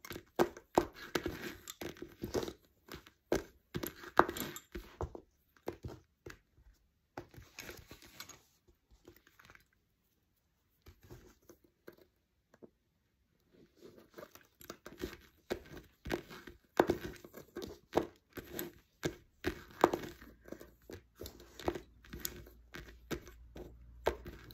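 Lace bobbins clicking and clattering against one another as pairs are crossed and twisted in cloth stitch, with a pause of a few seconds midway.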